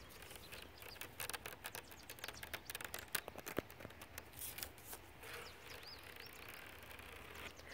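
Fingertips and nails scratching a trampoline's mesh safety net: a quick, dense run of dry scratches and clicks that thins out after about four and a half seconds. A few faint bird chirps follow.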